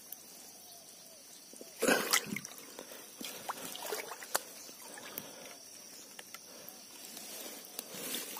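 Canal water splashing and trickling as a set fishing line is handled by hand at the water's edge, with one louder splash about two seconds in and small drips and clicks around it.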